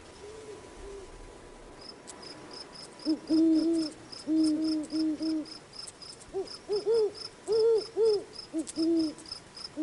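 Great horned owl hooting in a run of short hoots, faint at first and loud from about three seconds in. Crickets chirp steadily behind it, about three high chirps a second.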